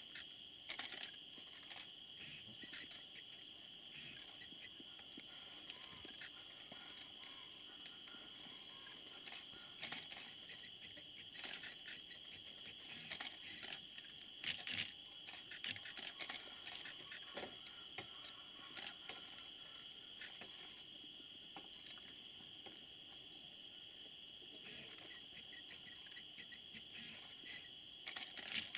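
Insect chorus at night: a steady high-pitched buzz at two pitches, one high and one very high, with scattered faint clicks and rustles.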